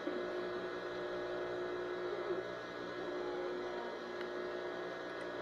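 Steady electrical hum made of several held tones over a low background noise, with no rhythm or change.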